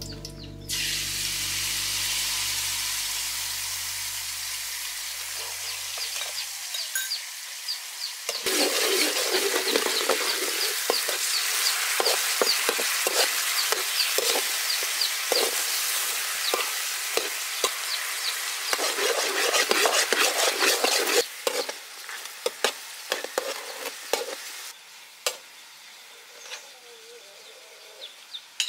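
Pork ribs frying in sauce in a hot wok: a loud, steady sizzle, with the spatula scraping and clicking against the wok as the ribs are stirred. The sizzle swells about eight seconds in and dies down near the end.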